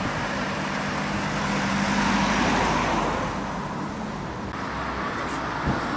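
Street traffic: a motor vehicle's engine hum over the general traffic noise, swelling about two seconds in and fading, with a short knock near the end.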